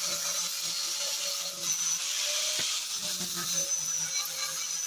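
Handheld angle grinder grinding a serrated steel vise jaw plate: a steady, high grinding hiss that eases briefly about a second and a half in.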